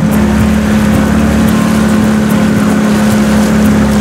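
Outboard motor on an inflatable dinghy running steadily under way, a constant engine drone.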